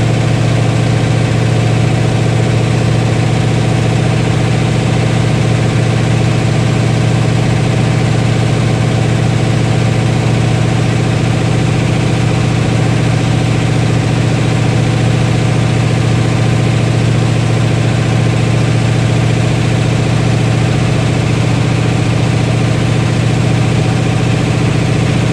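Freshly rebuilt Mopar 318 V8 running steadily at a constant speed through straight pipes during its first-run break-in.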